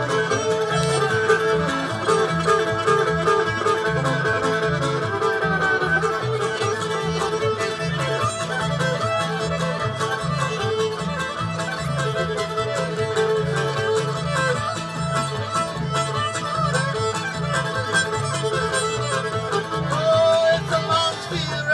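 Old-time string band playing an instrumental passage live: a fiddle carries the melody over strummed strings and an upright bass keeping a steady beat.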